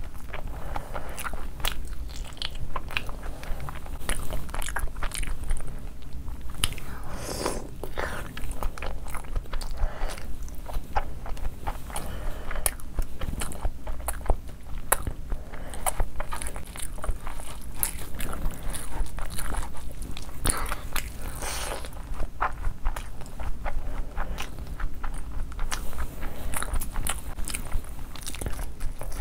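Close-miked eating sounds of chicken fried rice, chicken lollipops and egg curry eaten by hand: chewing and biting, with many short wet clicks, smacks and soft crunches at an irregular pace.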